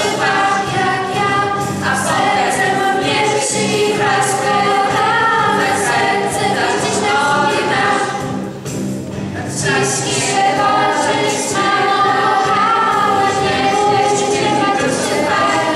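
A group of girls singing a song together into microphones, amplified over a hall sound system. There is a short break in the voices a little past halfway.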